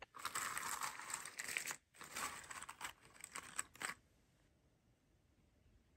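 Cardboard jigsaw puzzle pieces being shuffled and slid about on a wooden table, a dry rustling clatter of many small clicks that stops about four seconds in.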